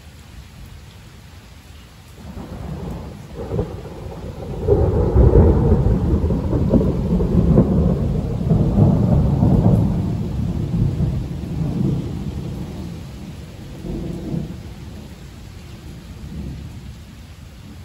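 A long roll of thunder over steady rain. It builds about two seconds in, is loudest around five to ten seconds in, then rumbles on in smaller swells and fades out.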